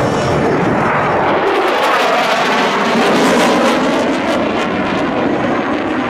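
Military aircraft flying a pass, a loud rushing engine noise that builds to its loudest about three seconds in and then eases.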